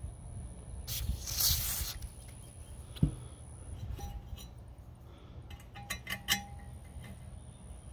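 Small metal blow-torch parts being handled: a short hiss about a second in, a sharp knock around three seconds, then a quick cluster of ringing metal clinks near six seconds.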